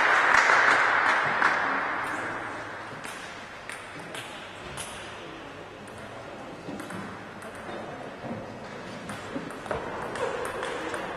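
Applause dying away over the first couple of seconds. Then the sharp clicks of a table tennis ball on bats and table, a few at first and then a quick run of them as a rally gets going near the end.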